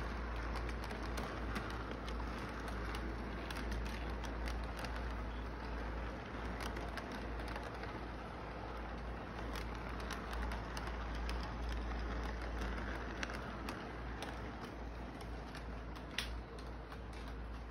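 Model train rolling along its track: a steady rumble of motor and wheels with scattered small clicks, and one sharper click near the end.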